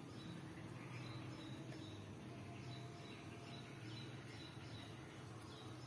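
Faint, steady background ambience with a low hum and short, high chirps that repeat every half second or so.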